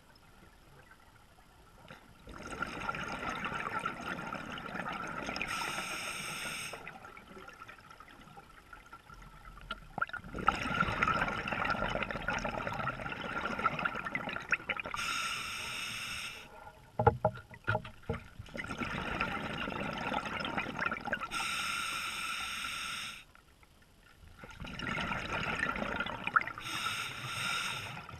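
Scuba diver breathing through a regulator underwater: long hissing breaths and gurgling exhaust bubbles in a slow cycle, about one breath every eight seconds.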